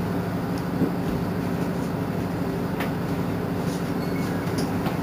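Mercedes-Benz Citaro C2 city bus standing with its engine idling: a steady, even low hum.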